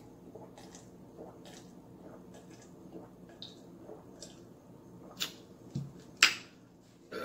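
A person drinking from a cup, swallowing in a series of small, quiet gulps. Near the end the cup is set down on the table with a soft thump, followed by a sharp click.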